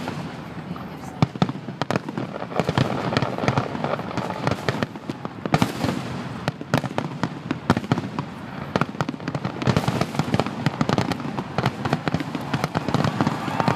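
Aerial fireworks shells bursting in a finale barrage: many rapid, overlapping bangs and crackles with no let-up.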